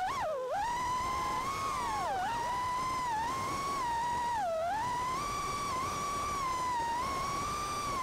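FPV racing quadcopter's brushless motors and propellers whining at a steady high pitch. The pitch drops sharply several times as the throttle is chopped for rolls and flips, then climbs back each time.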